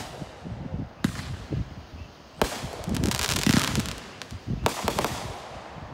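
Consumer aerial fireworks going off: three sharp bangs, about a second and a half to two seconds apart, each followed by a second or so of crackling as the shells burst.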